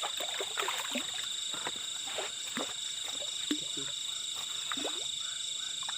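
Frogs croaking in short, scattered calls over a steady high-pitched trilling of night insects.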